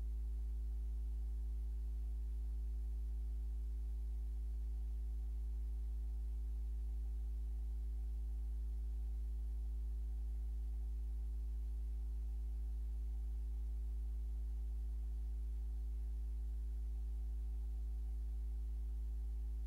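A steady low hum with fainter higher tones stacked above it, without change or break.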